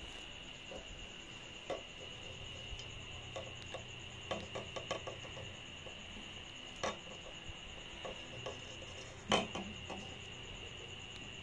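Light clicks, taps and rubbing of an orange synthetic rope being worked by hand around a metal pipe while a knot is tied, with one louder knock about nine seconds in. A faint steady high whine runs underneath.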